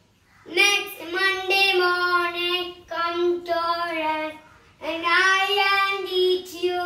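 A young child singing unaccompanied, in long held phrases that begin about half a second in and pause briefly about two thirds of the way through.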